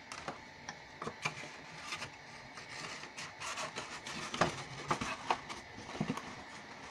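Heavy cardstock being handled: paper rubbing and scraping with scattered light taps and clicks as a cardstock box insert is pushed into a snug-fitting cardstock sleeve, the sharpest taps a little past the middle.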